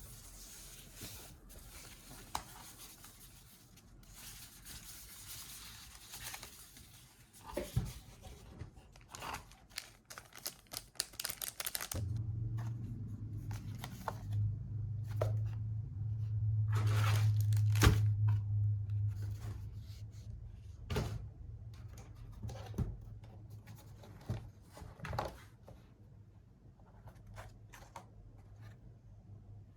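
Packaging being torn and handled while a keyboard is unboxed: tearing, rustling and sharp clicks of paper or plastic wrapping. About twelve seconds in a steady low hum comes in under the handling, swelling for several seconds before fading.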